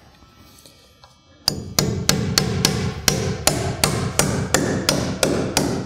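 Hammer driving a 16-penny nail at an angle (a toenail) through the bottom of a wooden roof rafter: a quick, steady run of strikes, about four a second, starting about a second and a half in.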